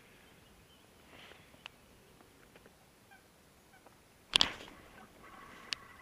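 One sudden loud sound about four seconds in, then a steady whir with a few held tones, typical of a baitcasting reel being turned.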